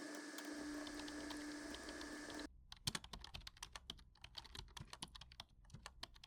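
Typing on a Logitech wireless keyboard for a tablet: a quick, uneven run of key clicks, several a second. Over the first couple of seconds the clicks are faint under a steady hum with a held tone. The hum cuts off abruptly about two and a half seconds in, and from there the keystrokes are clear and crisp.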